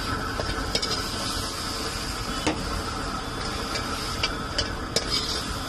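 Steel ladle clinking and scraping against a steel wok while chilli fries are scooped out, a handful of sharp irregular knocks over a steady hiss.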